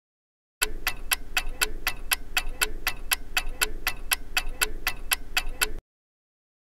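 Clock-ticking sound effect marking a countdown, with evenly spaced ticks about four a second. It starts about half a second in and cuts off abruptly near the end.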